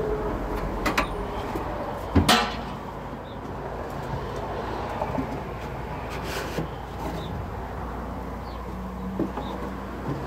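Honeybees buzzing steadily in a mass around an opened hive as bees are moved in, with a sharp wooden knock about two seconds in and a lighter knock about a second in.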